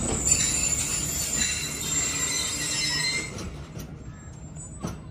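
Standing Pakistan Express passenger train hissing with several high whistling tones over a low rumble; the hiss fades out about three seconds in. A single sharp click near the end.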